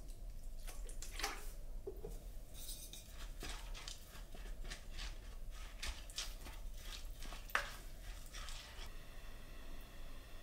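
Kitchen utensils at work: a run of short, light clicks and scrapes, at about three a second for a stretch, stopping about nine seconds in.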